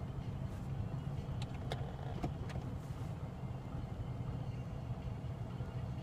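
Steady low rumble inside a car's cabin, with a few light clicks about one and a half to two and a half seconds in.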